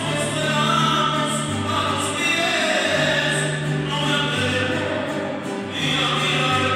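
A group of voices singing religious music in church, with long held notes that change pitch every second or two.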